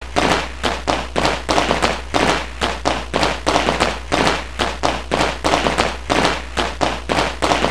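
Rapid, even tapping, several sharp taps a second, over a steady low hum. The tapping stops suddenly at the end.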